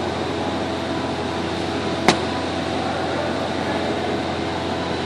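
Steady mechanical hum with several fixed tones, from machinery running in the background, and one sharp click about two seconds in.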